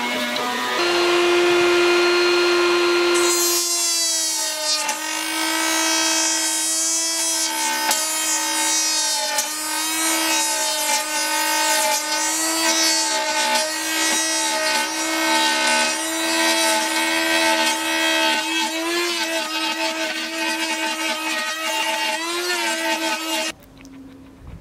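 Benchtop table saw running, its blade cutting a notch into a small wood strip; the motor's steady whine dips slightly under load during the cuts, and the sound cuts off suddenly near the end.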